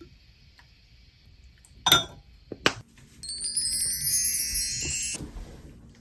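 Two sharp knocks, then a bright chime run that climbs in pitch for about two seconds and stops abruptly.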